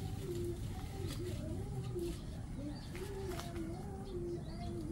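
Doves cooing: a steady run of low coos, one after another.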